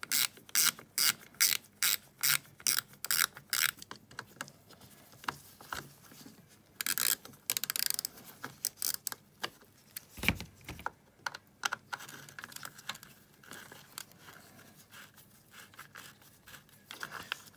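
Screwdriver, with ratchet clicks, backing out the screws of a pocket bike's plastic air filter box: a fast run of clicks, about three a second, for the first four seconds, then scattered scrapes and clicks as the parts are handled, with a dull knock about ten seconds in.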